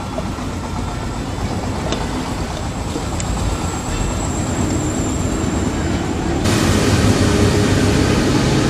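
Engine running steadily with a low rumble that slowly grows louder; about six and a half seconds in, a hissing noise abruptly joins it.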